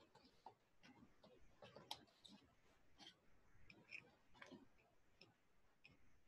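Faint, scattered clicks and light rustles of stiff corrugated cardboard strips being handled and pressed into place while weaving a box.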